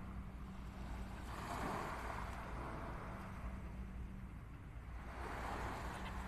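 Small waves washing onto a sandy shore, swelling twice, over a low wind rumble on the microphone and a faint steady hum.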